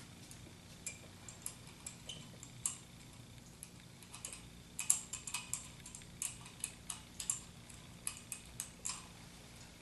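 Light metallic clicks and taps, irregular and coming more thickly from about halfway through, as an Allen wrench is worked in the timing-pointer bolts to loosen the pointer.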